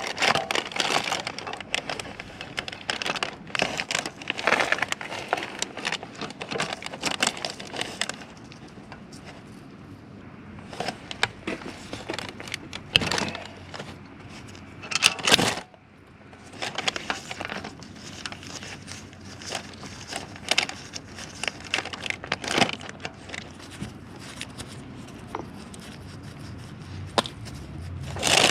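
Hands working on parts: irregular rustling and crinkling with scattered clicks and knocks, loudest in a sharp clatter about halfway through.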